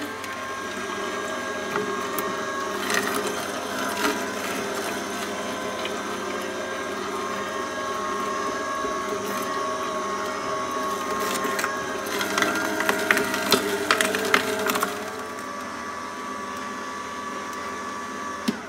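Endever Sigma 95 slow auger juicer running steadily with a whine, its auger crushing carrots, with a run of sharp cracking and crunching between about 12 and 15 seconds in.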